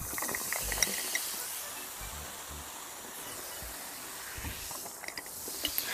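Cola poured from a plastic bottle into a glass, the carbonated drink fizzing with a steady hiss that eases off after the first couple of seconds, with a few small clicks in the first second.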